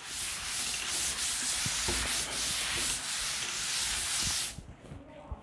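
A cloth wiping chalk off a chalkboard in brisk back-and-forth strokes, stopping about four and a half seconds in.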